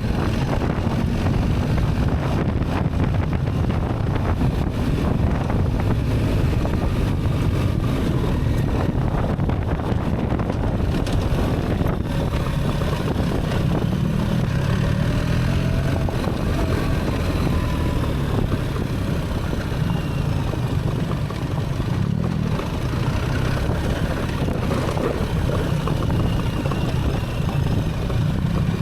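BMW R 1300 GS Adventure's boxer twin engine running while the bike is ridden, its revs rising and falling a few times, with wind noise on the microphone.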